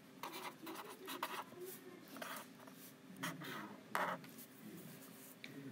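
Pen writing on paper: a series of short, separate scratchy strokes as words are written out by hand.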